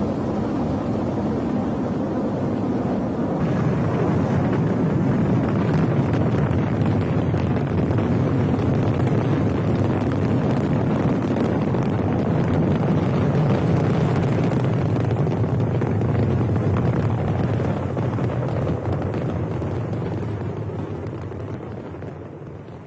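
Rocket launch: the engines' continuous low rumble, growing louder a few seconds in and fading away over the last few seconds.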